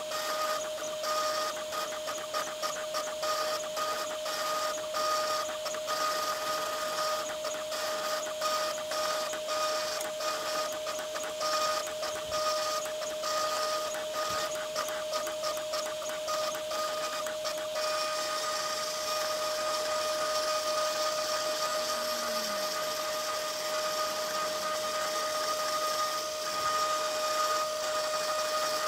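Small CNC router engraving a copper-clad PCB: the spindle motor whines at one steady pitch while the stepper motors buzz in quick, uneven bursts as the head moves. About two-thirds of the way through, the bursts run together into a steadier noise.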